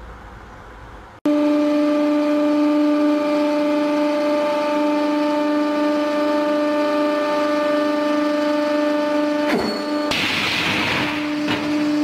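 Rubber ball squeezed flat by a hydraulic press, air forced out of it in a loud, steady, horn-like honk. Near the end the honk breaks off for a moment, a short hiss of rushing air follows, and then the honk returns.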